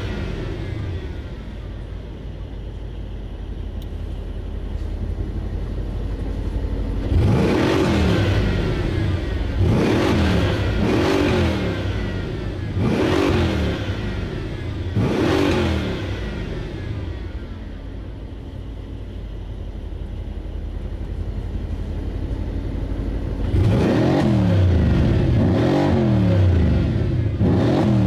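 Mercedes-AMG C63's twin-turbo V8 free-revving while parked. It runs at a fast idle at first, then from about seven seconds in it is blipped sharply about every two seconds, settles back, and near the end is given a rapid string of quick blips.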